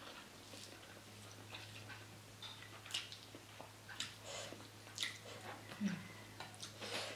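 A person chewing and smacking while eating rice and tempeh with the fingers, with soft irregular clicks of mouth and fingers on the plate. A faint steady low hum runs underneath.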